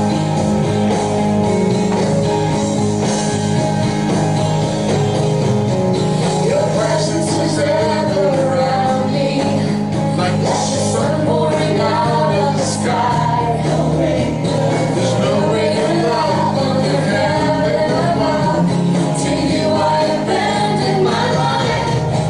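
Rock-style worship song with instruments and singing; the sung melody comes in about six seconds in.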